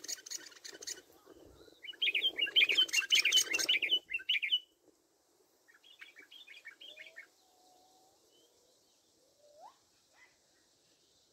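Small songbird singing rapid, loud twittering phrases about two to four seconds in, then a shorter, fainter burst of notes a couple of seconds later. A low rustle runs under the song and stops about four seconds in.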